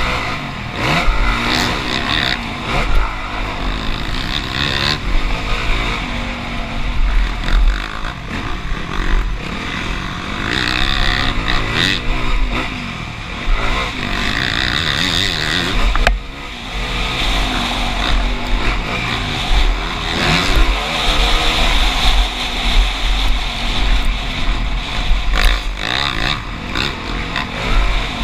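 Motocross bike engine revving up and easing off again and again, its pitch climbing and dropping with the throttle and gear changes, over a heavy low rumble.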